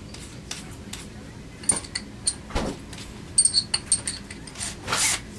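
Metal clicks and clinks of a drill bit being changed in a drill chuck: the old bit taken out and a large countersinking bit fitted, with a few sharp metallic clinks about three and a half seconds in and a dull knock near the middle.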